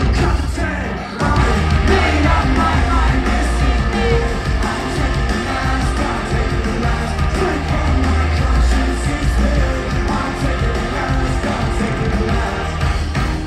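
Live rock concert music played loud through the PA, with singing over the band; the sound dips briefly about a second in, then carries on at full level.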